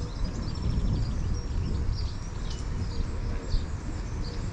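Small birds chirping, many short high calls, over a steady low rumble of outdoor street ambience.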